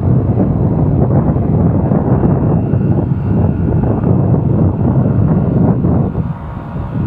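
Wind rushing over the microphone of a motorcycle riding at speed, with engine and road noise underneath; it eases briefly about six seconds in.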